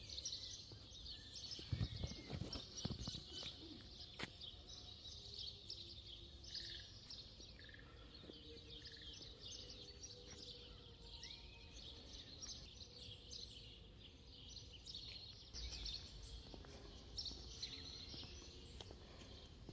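Several songbirds singing and chirping in a steady chorus of short high notes. There are a few brief low rumbles about two seconds in and again near the end.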